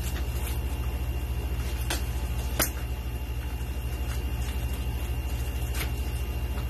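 A steady low hum throughout, with four short sharp crackles and snips as plastic wrapping on a computer box is cut and pulled with scissors.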